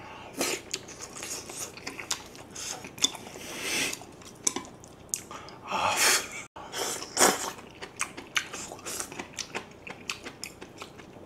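A man chewing mouthfuls of spicy braised monkfish and bean sprouts close to the microphone: many small wet clicks and smacks.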